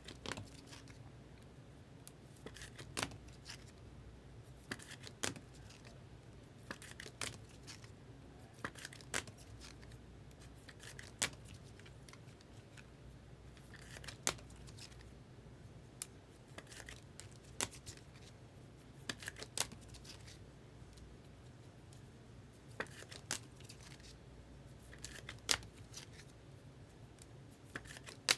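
Trading cards being slid into rigid plastic toploaders by hand: irregular light plastic clicks and scrapes, roughly one every second or two, over a faint steady low hum.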